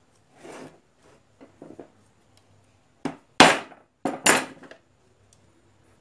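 Hard plastic blower housing being handled on a wooden workbench: a faint rustle, a few light taps, then several sharp knocks and clatters between about three and four and a half seconds in.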